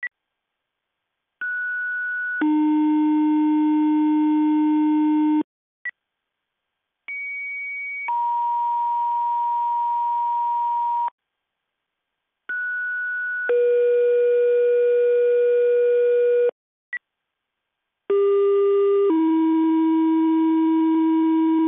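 Fire dispatch paging tones over the radio: four two-tone sequential pages, each a short higher tone of about a second stepping down to a lower tone held about three seconds, with brief beeps between them. They are the tone-out that sets off the pagers of the fire and ambulance companies being dispatched.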